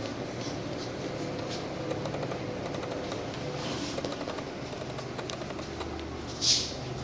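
Steady room hum, like a fan running, with faint rustles and ticks and a short hiss about six and a half seconds in.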